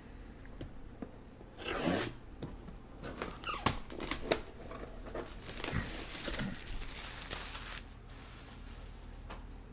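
Hands handling packaging and a boxed comic slab: rustling and scraping, with a few sharp clicks and knocks in the middle.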